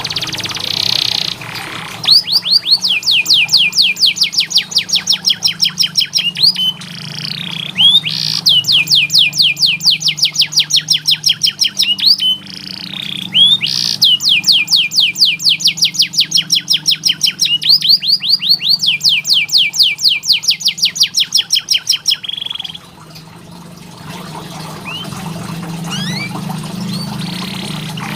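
Domestic canary singing long rolls: fast trains of identical high notes repeated several times a second, three long rolls in a row with short breaks between them, then a few scattered quieter chirps near the end.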